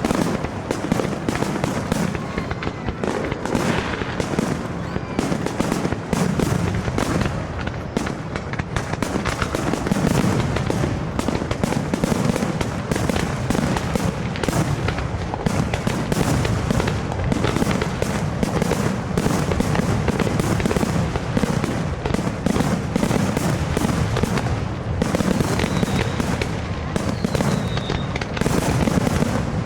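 Aerial fireworks bursting in a dense, continuous barrage, many bangs and crackles a second with no let-up, and a couple of faint falling whistles near the end.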